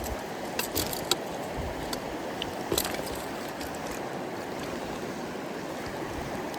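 Mountain stream running steadily, its water slightly high, with a few sharp clicks about a second in and near three seconds. The water sound cuts off abruptly near the end.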